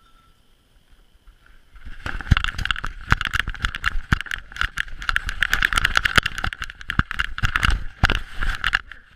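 Rapid clattering knocks and rubbing from a GoPro strapped to a basset hound as the dog moves quickly across the floor, starting about two seconds in after a quiet moment.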